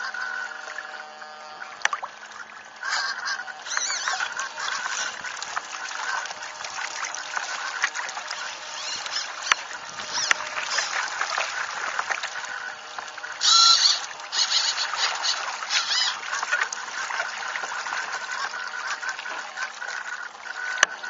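Water rushing and splashing past the hulls and foils of a small radio-controlled hydrofoil trimaran under sail, with spray spattering and one louder splash about halfway through. A faint steady whine at several pitches sits underneath.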